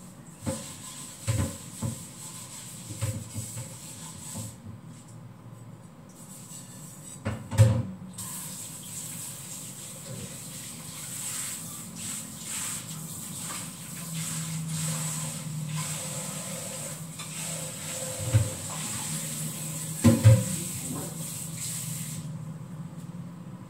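Kitchen tap running into the sink, with clatters and knocks of things being washed and handled in the basin. The water stops for a few seconds early on and again near the end, and the loudest knocks come about seven and twenty seconds in.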